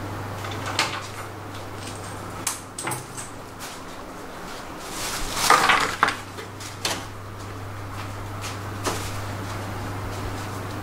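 Metal hand tools and parts clinking and clattering, with scattered clicks and knocks and a louder clatter about five to six seconds in, over a steady low hum.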